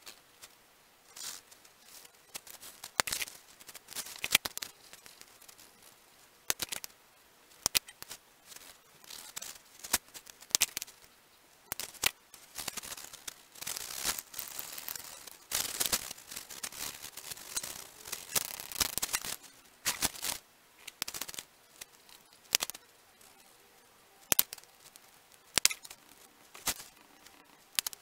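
Paper being handled, creased and drawn on: many short sharp clicks and taps, with a denser stretch of rapid scratching in the middle where a crayon is shading the paper.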